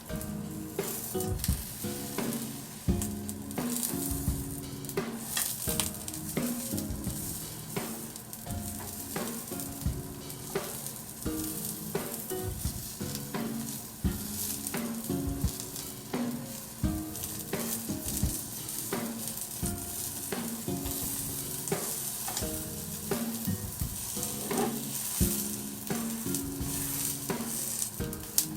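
Oil sizzling steadily in a frying pan as fried-tofu pouches stuffed with gyoza filling cook, with scattered short clicks of a utensil against the pan.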